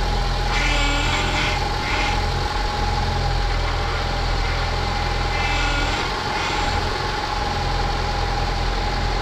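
2008 Honda Civic's four-cylinder engine idling with a steady high whine, while the steering is turned from lock to lock to bleed a newly fitted power steering pump. A louder, harsher pitched noise comes twice, about a second in and again around six seconds, as the pump works at full lock with the fluid running low.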